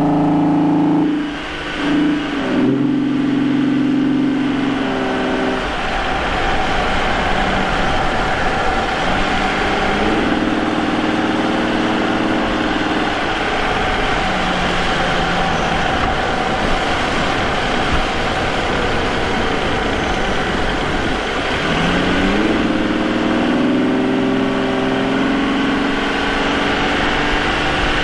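Vauxhall Omega's 3.2-litre 24-valve V6 (Y32SE) engine with a K&N air filter and custom exhaust, heard close to the intake while driving. The note dips about a second and a half in and settles lower. It then runs steadily and rises clearly as the car accelerates about three-quarters of the way through.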